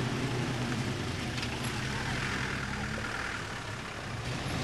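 Land Rover 101 Forward Control's engine running steadily at low revs under way, easing off slightly about three seconds in.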